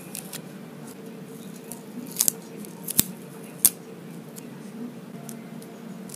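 Side cutters snipping through the insulating wrap of an 18650 lithium-ion battery pack: three sharp snips less than a second apart, near the middle, with a steady low hum underneath.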